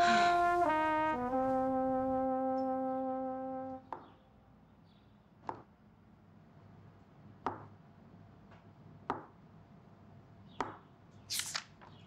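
A comic brass music sting: a few notes stepping downward, the last one held low for about three seconds before it stops. After it, a handful of isolated sharp light taps about every one and a half to two seconds, and a short rustle near the end.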